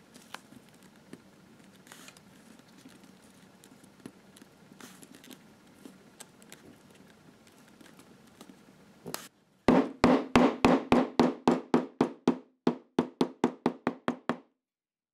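Faint rustling of leather being pressed by hand, then, about ten seconds in, a run of about twenty quick mallet taps on leather, about four a second, driving a contact-cemented welt strip down onto the holster back.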